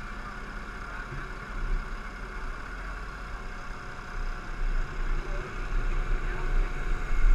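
Nissan Titan pulling truck's VK56 5.6-litre V8 running as the truck rolls slowly forward, a low uneven rumble that grows louder over the last couple of seconds.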